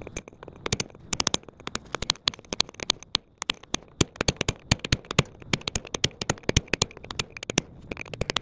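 Hammer driving a cold chisel into a rusted, half-rotted wheel nut to split it: a rapid, uneven series of sharp metal-on-metal strikes, several a second.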